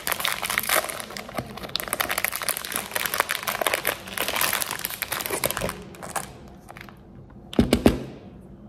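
Wrapper of a small white chocolate Easter egg crinkling as it is unwrapped, dense and continuous for about five seconds, then fading. Near the end comes a short, loud knock and crack.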